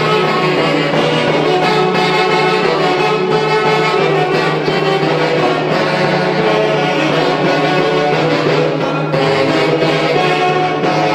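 Live band led by saxophones playing a festive Santiago dance tune from the Huancayo tradition, with a drum beating under the melody.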